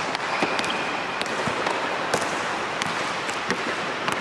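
Basketball dribbling: irregular sharp bounces of the ball on the court over a steady background hiss.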